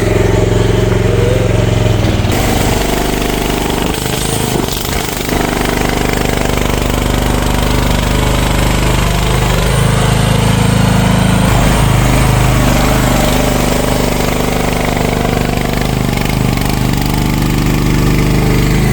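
A CFG MX15RX mini excavator's engine running steadily as the machine drives along on its tracks.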